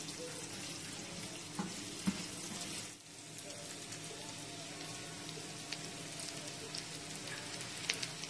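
Oil sizzling steadily in a nonstick pan as diced coconut fries with onion, chana dal and dried red chillies. A few light spatula clicks come about two seconds in and near the end.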